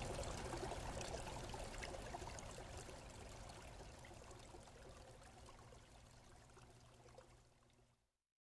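A steady hissing, trickling noise with fine crackle. It fades gradually and is gone about eight seconds in.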